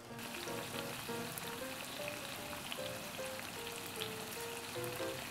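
Background music, a light melody of short notes, over the sizzle of sliced eggplant and green pepper frying in miso sauce as the liquid cooks down.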